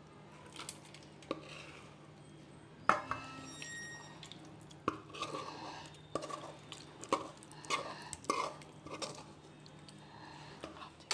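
A metal spatula scraping and clinking against steel cookware as thick Karachi halwa is scooped out and dropped into a greased steel plate. A sharp clink about three seconds in is the loudest sound, followed by a run of scrapes and soft clinks about every half second.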